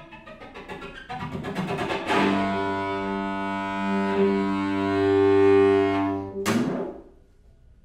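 String quartet playing rapid repeated bowed notes that swell in loudness, then a loud sustained chord with a deep cello-range bass. It ends with a sharp accented stroke and dies away about seven seconds in.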